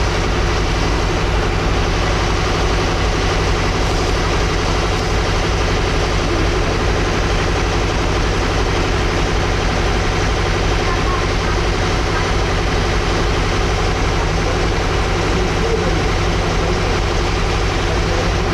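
Heavy vehicle engine idling steadily at a constant pitch.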